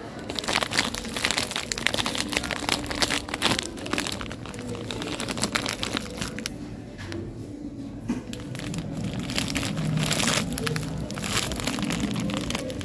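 Plastic bag of Fini Deli Jelly gummy sweets crinkling as it is handled, in two spells with a quieter lull about halfway through.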